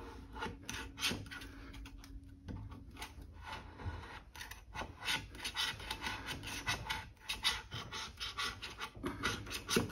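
Hand scraper scraping sticky Stopaq visco-elastic coating off a steel pipe, a run of short, irregular scraping strokes, as the coating is cleared to expose the surface for inspection.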